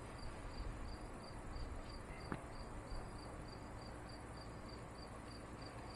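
Insect chirping steadily outdoors, a high-pitched chirp about three times a second, over faint ambient noise; a single light click about two and a half seconds in.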